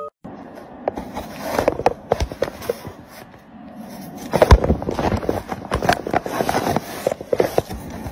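Irregular rustling, tapping and scraping on cardboard as a kitten moves and paws inside a cardboard box, with a louder knock about halfway through.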